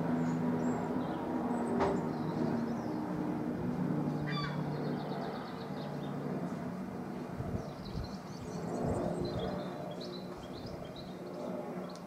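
Small birds chirping over a low steady hum, with one sharp tap about two seconds in.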